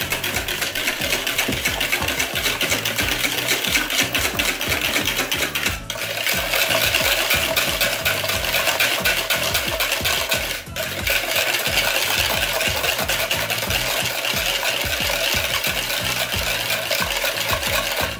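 Metal wire balloon whisk beating a creamy batter in a plastic bowl: a fast, steady clatter and scrape of the wires against the bowl, with brief pauses about six seconds in and again near eleven seconds.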